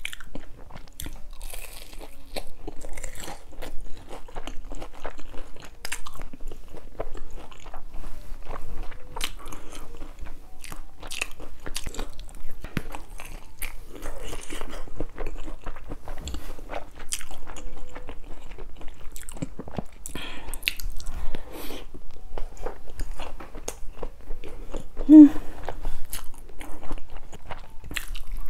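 Close-miked eating: biting into and chewing battered fried squid, with many irregular crisp crunches and wet mouth clicks. A brief hummed vocal sound comes near the end.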